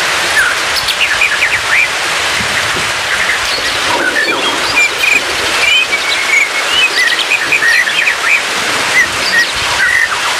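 White-rumped shama giving short chirps and quick whistled phrases, many times over. The calls sit over a steady rain-like hiss, typical of a shama 'therapy' track that plays bird song with water sounds.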